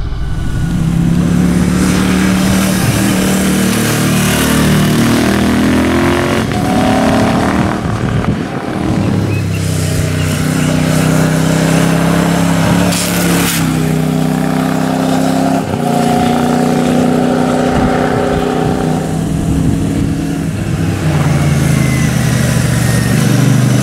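Royal Enfield Shotgun 650's 648 cc parallel-twin engine being ridden briskly. Its note climbs and drops in steps as it pulls through the gears, easing off briefly about eight seconds in.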